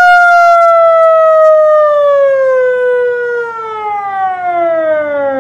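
A loud siren wail played through a JBL Bluetooth speaker: one long pitched tone that falls slowly and steadily after its peak.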